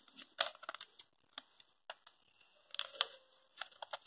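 Faint, scattered rustles and crinkles of a paper square being folded and its creases pressed down by hand, with a cluster of them about three seconds in.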